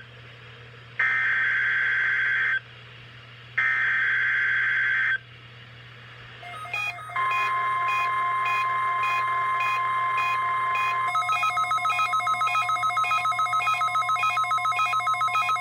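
NOAA Weather Radio Required Weekly Test: three short screeching SAME digital header bursts, then, about seven seconds in, the steady 1050 Hz warning alarm tone. About eleven seconds in, a rapid electronic beeping of about four to five pulses a second joins the tone.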